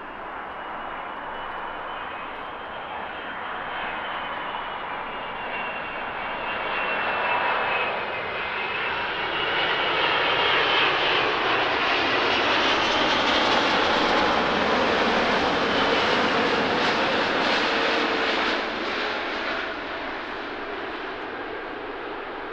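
Airbus A380's four jet engines on final approach: a rumble with a high whine that wavers in pitch, building steadily as the airliner comes close and then falling off sharply about three-quarters of the way through.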